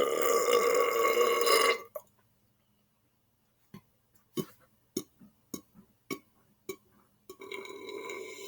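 A man's loud, raspy burp lasting almost two seconds, brought up after drinking soda. A run of short clicks follows, then a second, quieter raspy sound near the end.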